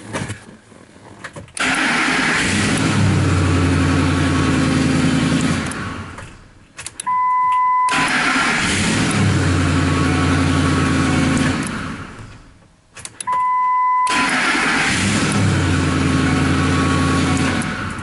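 2006 Ford F-150's 5.4-litre V8 cranked and started three times, each time catching with a rising pitch, running steadily for a few seconds, then shut off and dying away. Between the starts a short single electronic chime sounds. The engine now starts because a replacement relay has been put in for the corroded one.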